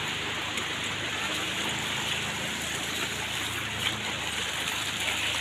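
Water flowing over the low weirs of a stepped fountain channel, with small fountain jets splashing: a steady rush of water.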